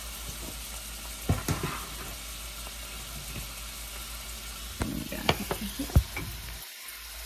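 Diced onion and freshly added sliced mushrooms sizzling steadily in oil in a stainless steel pan. A few sharp knocks come about a second in and again around five to six seconds in.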